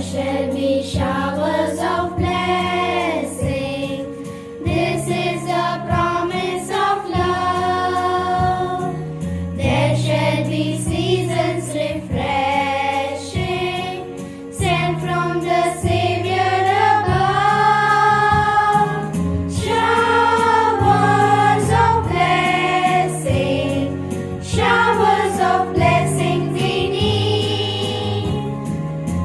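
Choir singing a song, likely the assembly's opening prayer song, over steady instrumental accompaniment with held low notes.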